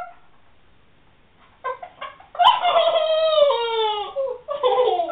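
A person's voice garbled by a mouthful of marshmallows. After a quiet start come a few short muffled sounds, then a long drawn-out call of about two seconds that slides down in pitch, and more choppy garbled sounds near the end.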